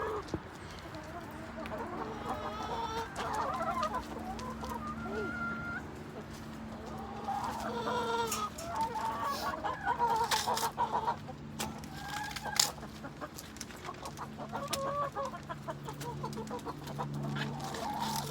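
Backyard chickens clucking continuously as they eat food scraps, many overlapping short calls with scattered sharp clicks among them.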